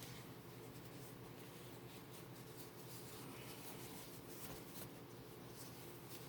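Faint rustling and rubbing of denim as a jeans leg is folded and handled, over a low steady hum.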